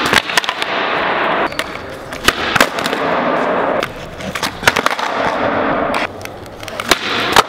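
Skateboard wheels rolling on a smooth concrete floor, in several runs with short gaps between them, broken by sharp wooden clacks of the board popping and slapping down. The loudest clack comes just before the end.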